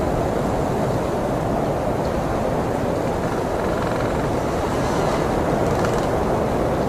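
Blizzard wind blowing in a steady, dense rush, with most of its weight low down and no let-up.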